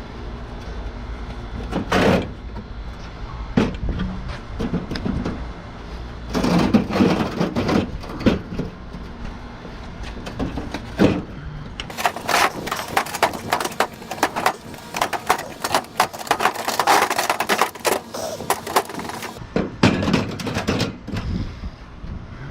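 A metal window air conditioner unit being handled and loaded into a vehicle, with scattered clunks and knocks and then a long stretch of dense metallic clatter and scraping about halfway through. A low engine hum runs under the first half.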